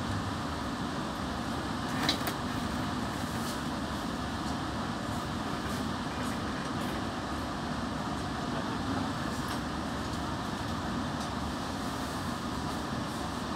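Steady running noise of a passenger train moving along a station platform, heard from inside the carriage, with faint scattered clicks and one sharper click about two seconds in.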